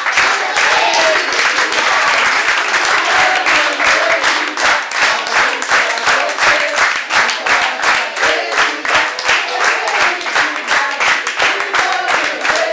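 A crowd of people clapping, at first as scattered applause and then settling into a quick, steady clapping beat, with voices mixed in.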